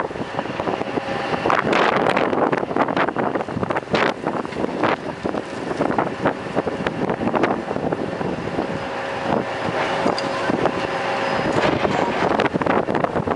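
Wind gusting hard over the microphone in a blizzard, over the steady running of heavy mining machinery: an electric rope shovel loading a BelAZ haul truck.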